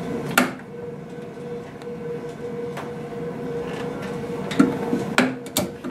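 The knife holder of a Leica RM2125 rotary microtome being slid along its base toward the specimen block, a low sliding rumble with sharp clicks of metal parts about half a second in and several more near the end, over a steady hum.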